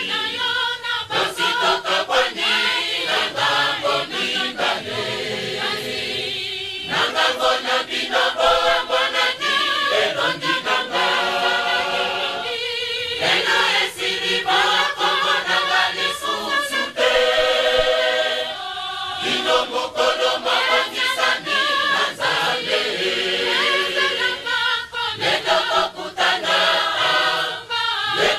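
A choir singing in harmony over a regular beat, in phrases that break off every few seconds.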